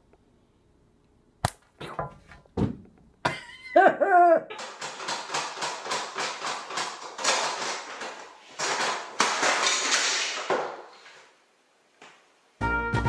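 A few sharp taps on a glass tabletop as a kitten bats at a small object, and a short cry about four seconds in. Then several seconds of rapid rattling and knocking from a cat pawing and pushing at a plastic cat flap set in a door.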